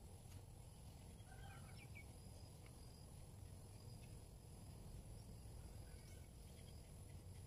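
Quiet outdoor ambience: faint bird calls, a short group about a second in and another near six seconds, over a low background hum and a steady thin high tone.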